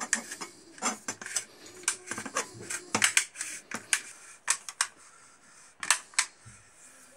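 Light clicks and metallic clinks of a Remington 870 pump shotgun's forend assembly, its action bars and forend tube, being handled and fitted together by hand. The clicks come in short irregular clusters.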